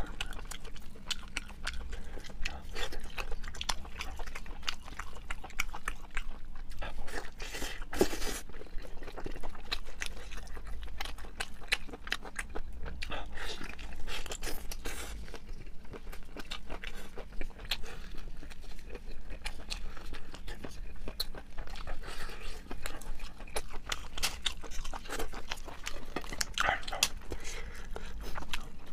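Close-miked chewing of sheep's head meat, with dense, irregular mouth clicks and smacks, and tearing as gloved hands pull the meat apart.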